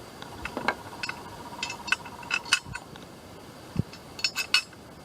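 Bolts and a metal lifting lug clinking and clicking against an intake manifold as they are set in place by hand: a scatter of sharp metallic clinks, several in quick succession near the middle and again near the end.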